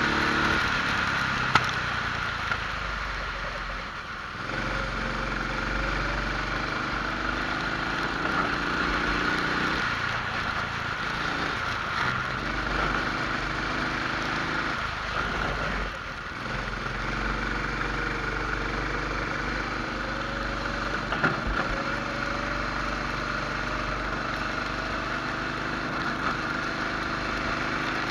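Rental kart's engine heard on board at racing speed: its pitch climbs slowly as it accelerates and drops off twice as the kart slows for corners. A couple of short knocks stand out.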